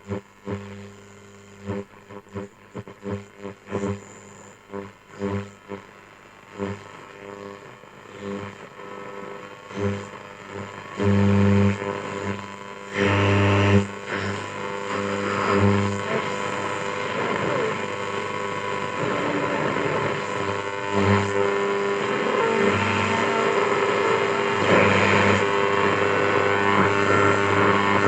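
A 1959 Ekco U353 valve radio coming on through its loudspeaker with a strong mains hum. The sound cuts in and out in choppy bursts at first, then runs steadily from about ten seconds in with faint, noisy broadcast sound over the hum. The hum comes from ageing capacitors due for replacement.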